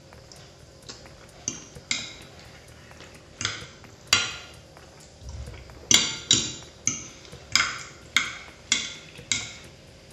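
Metal knife and fork clinking and scraping against a ceramic plate: about a dozen sharp clinks, each ringing briefly, coming faster and louder about halfway through.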